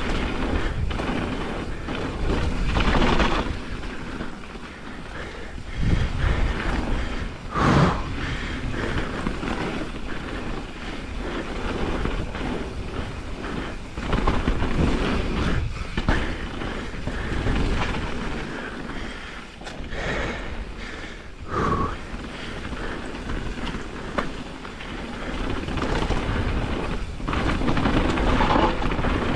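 Pivot Firebird enduro mountain bike descending a dirt trail, heard from a helmet chin-mounted camera: tyres rumbling over the ground, wind buffeting the microphone, and frequent knocks and rattles from the bike over bumps. Two short squeals come about eight and twenty-two seconds in.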